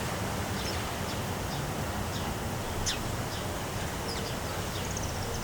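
Steady gusty wind rushing and buffeting the microphone, with scattered short bird chirps over it.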